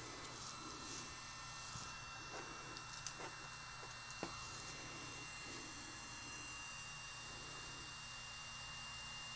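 Faint steady hum and hiss with thin high whines, the room tone of a workbench with electronics running. A few small clicks of handling small parts come about three and four seconds in.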